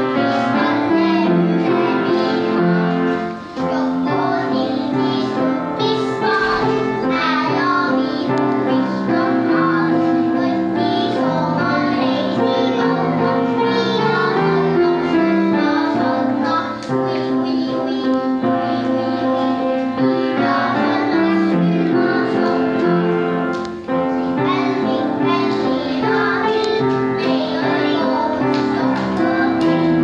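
Young children singing a song together, one girl's voice through a microphone, over steady instrumental accompaniment.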